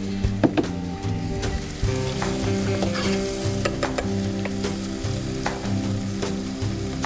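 Finely chopped onions sizzling as they fry in ghee and olive oil in a pot, stirred with a wooden spoon that clicks and scrapes against the pan, over a low steady hum.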